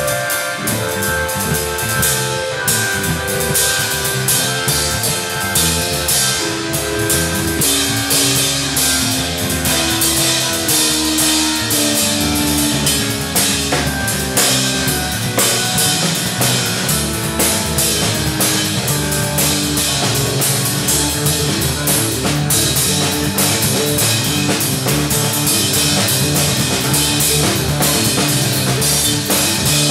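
Live instrumental trio of electric organ, electric bass and drum kit playing, the drums keeping a steady beat. A line of long held notes steps down in pitch through the first half.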